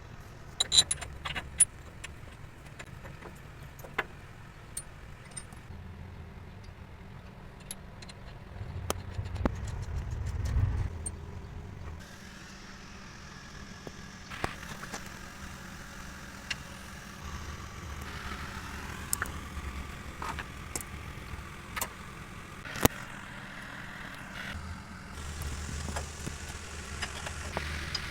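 Metal clinks and knocks of truck repair work, over a low engine hum that swells for a couple of seconds around ten seconds in and again near the end.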